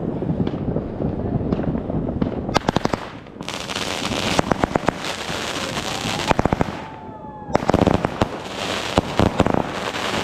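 Fireworks going off: rapid strings of sharp bangs over dense crackling, with a few falling whistles about two-thirds of the way through.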